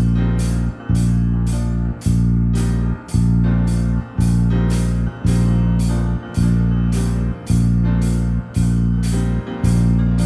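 Instrumental music with a steady beat: a loud chord struck about once a second over a heavy held bass, in a keyboard-led arrangement.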